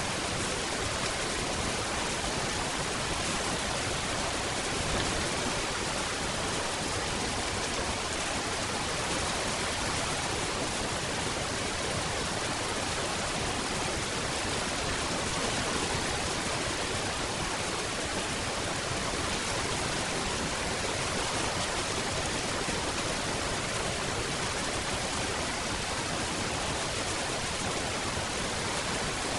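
Steady rain falling, an even hiss with no single drops or other sounds standing out.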